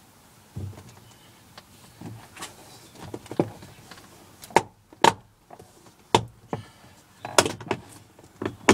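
Plastic trim clips of a Jaguar X-Type's door card popping out of the door as the panel is pulled off by hand: a run of sharp snaps and cracks, a few spread out at first, then louder and quicker in the second half. It sounds quite violent.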